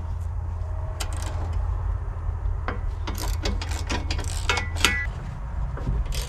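Irregular metallic clicks and clinks of a hand tool working loose the bolts that hold a tractor's access ladder and battery cover, with a brief metal ring about four and a half seconds in, over a steady low hum.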